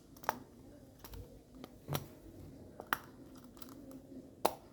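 Silicone pop-it fidget toy being pressed, its bubbles popping with soft, irregularly spaced clicks, a handful of them.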